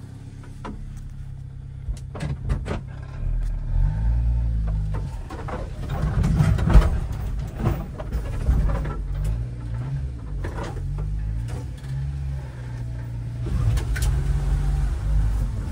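1993 Subaru Sambar kei truck's 660 cc engine heard from inside the cab. It runs steadily at first, then rises and falls in pitch as the truck drives along a rough woods trail. Scattered knocks and rattles run through it, the loudest a sharp thump about seven seconds in.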